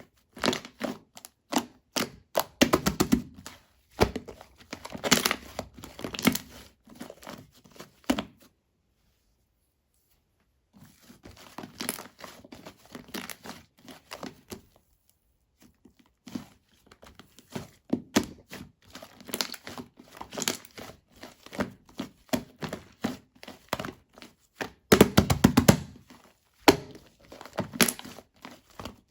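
Shaving-foam slime squeezed and worked by hand, making dense sticky crackling, popping and squelching. Around eight seconds in the sound stops for a couple of seconds, then returns more faintly before building up again.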